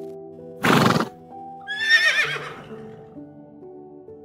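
A horse whinnies once: a wavering neigh of about a second that falls in pitch, coming just after a short, loud noisy burst. Soft background music with held notes plays throughout.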